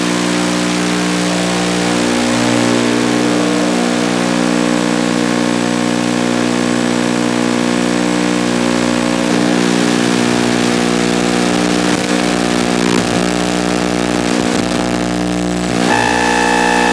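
Steady electronic buzz and hiss from an analog FPV video link's audio channel, recorded by the goggles' DVR: several fixed hum tones that barely change with the flying. About a second before the end the buzz shifts and higher tones join it.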